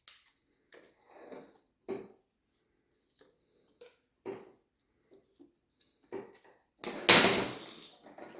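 Scattered small clicks and knocks as Teflon thread tape is wrapped onto the threads of a water heater anode rod. A louder noisy burst about a second long comes near the end.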